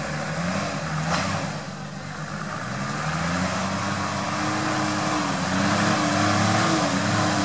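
Off-road 4x4's engine pulling at low revs up a steep muddy trail, the revs rising and the engine getting louder in the second half. A single sharp crack about a second in.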